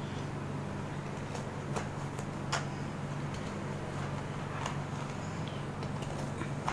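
A kitchen knife cutting firm dheu (monkey fruit) on a plastic chopping board: a few scattered sharp clicks as the blade goes through the hard fruit and meets the board, over a steady low hum.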